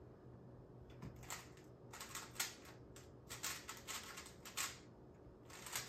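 Faint, quick runs of plastic clicking and clacking as the layers of a Rubik's cube are turned fast during a speedsolve, with short pauses between the runs.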